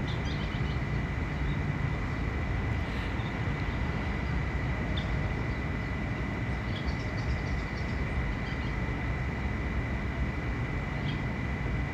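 A steady, even whir with a thin steady whine, like a kitchen fan running, and a few faint crackling ticks from shrimp cooking in a pan of melted butter.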